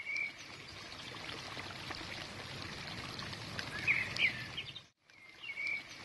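Nature ambience: a steady wash of outdoor noise like flowing water, with a few short bird chirps at the start and again around four seconds in. The sound cuts out for a moment near the end and starts over with the same chirp.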